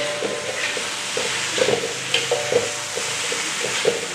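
Fern shoots stir-frying in an aluminium wok: a steady sizzle, with a metal spatula scraping and clinking against the wok about three times a second.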